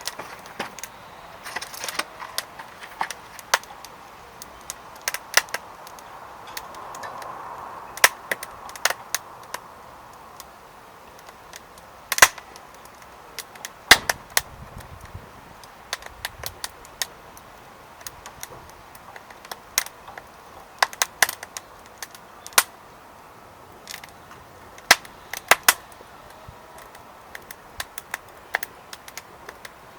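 Firewood burning in a secondary-combustion fire pit, crackling with irregular sharp pops and snaps over a soft steady rush of flame.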